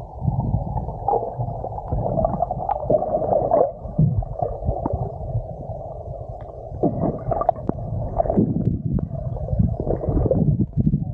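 Muffled underwater rumble and gurgling of water moving around a submerged action camera's microphone, broken by irregular low knocks and bubbly swells as the swimmer moves.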